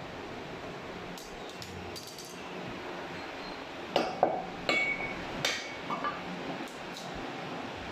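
Heavy meat cleaver chopping through a mutton leg bone on a wooden chopping block: a quick series of sharp chops starting about halfway in, the first four loudest, some with a short metallic ring, then a few lighter ones.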